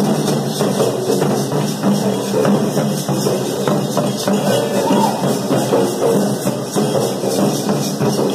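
A troupe of traditional folk drummers playing a fast, steady beat on large hand-held drums.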